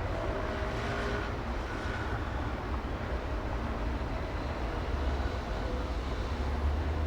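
City street traffic ambience: a steady low rumble of vehicles with a wash of road noise, and faint pitched engine or horn tones in the first couple of seconds.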